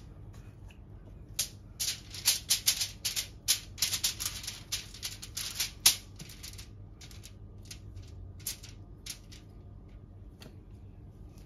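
Aluminium foil crinkling and crackling under gloved hands spreading margarine over it: a dense run of sharp crackles for the first half, then sparser crackles until near the end.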